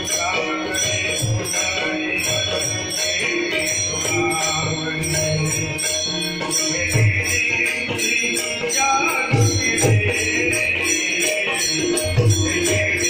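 Marathi abhang bhajan music: small hand cymbals jingle in a steady repeating beat over sustained melody, with a few low drum strokes.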